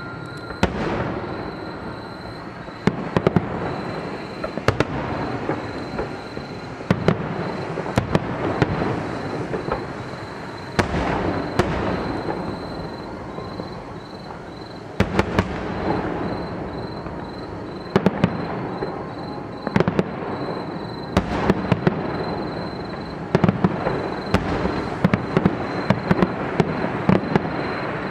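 Aerial fireworks display: shells bursting in clusters of sharp bangs and crackles over a continuous rumble, busiest near the end.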